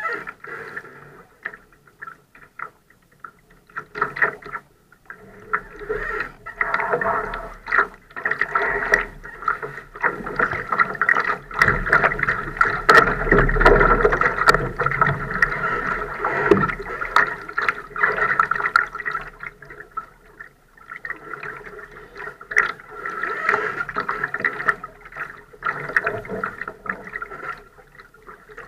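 Water gurgling and sloshing against the hull of a Laser sailing dinghy, swelling and fading unevenly and loudest midway, with scattered sharp clicks and knocks from the boat.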